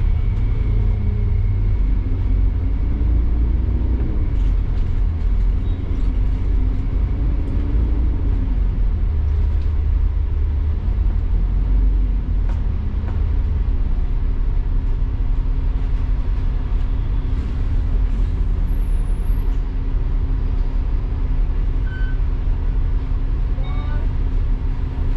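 Double-decker bus engine and drivetrain running under the upper deck. For the first twelve seconds or so the pitch rises and falls as the bus pulls away and changes gear, then it runs steadily.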